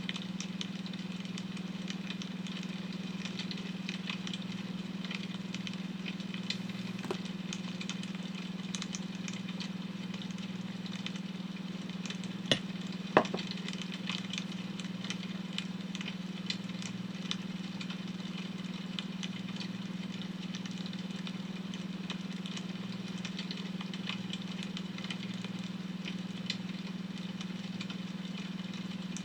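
Wood fire crackling, with many small scattered pops and two louder pops about halfway through, over a steady low hum from a beta-wave tone.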